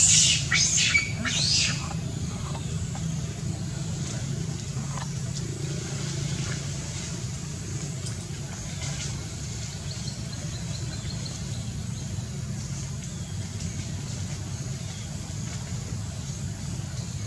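Steady low outdoor rumble, with a few short sharp noises in the first two seconds.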